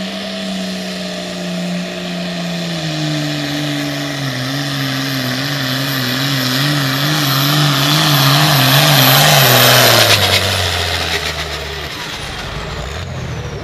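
Limited pro stock pulling tractor's turbocharged diesel at full throttle dragging a weight-transfer sled. The engine pitch sags slowly and wobbles up and down as it loads up, getting louder. About ten seconds in it lugs down sharply with a rattling crackle, as the tractor is pulled down and stops, and a high whine falls away near the end.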